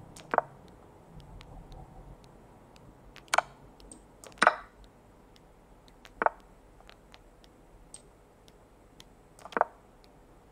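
Chess.com move sound effects: five sharp, irregularly spaced piece-placement clicks as moves and captures are played in a fast online game, with a few much fainter ticks between them.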